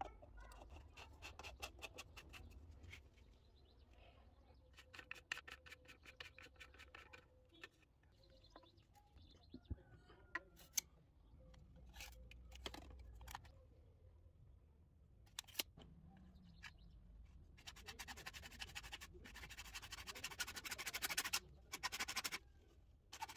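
Hacksaw cutting a grey plastic drain pipe: a fast, even rasping of saw strokes for a few seconds near the end, breaking off and starting again. Before that, scattered clicks and short rattles as plastic sink-trap parts and a tape measure are handled.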